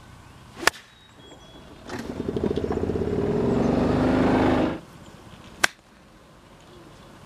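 A motor vehicle's engine running and rising in pitch for about three seconds, then stopping abruptly. It is set between two single sharp cracks, one before it and one after.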